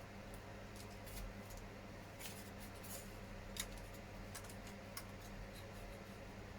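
Faint clicks, taps and light scrapes of small injection-moulded plastic kit parts being handled and pressed together, with a sharper click about three and a half seconds in, over a steady low hum.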